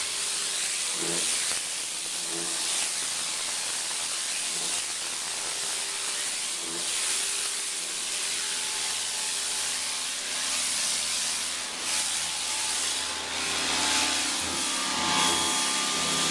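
Pressure washer jet spraying onto a concrete walkway: a steady hiss of high-pressure water on the slab, with the washer pump's steady hum underneath.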